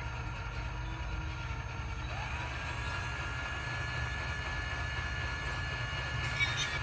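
Steady machine hum: a low rumble with a steady high whine above it that firms up about two seconds in, and a single click near the end.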